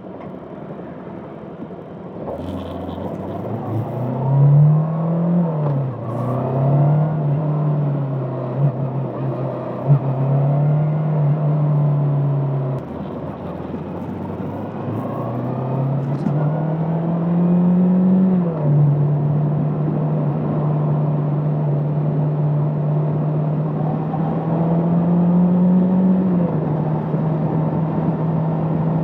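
Bristol Venturi 500 motorcycle engine heard on board while riding. Its note climbs and drops back at each of several gear changes, holding steady in between at a cruise.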